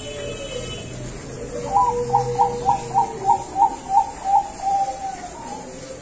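Zebra dove (perkutut bangkok) singing: a run of about nine short, evenly spaced coo notes, roughly three a second, ending on a longer drawn-out note. A softer, lower coo sounds underneath.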